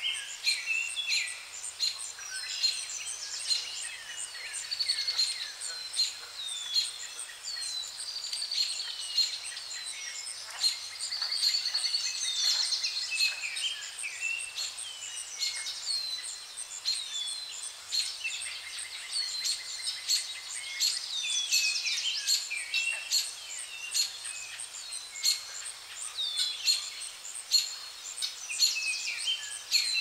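Several songbirds chirping and singing at once, many short falling chirps and trills overlapping throughout, over a steady high-pitched tone.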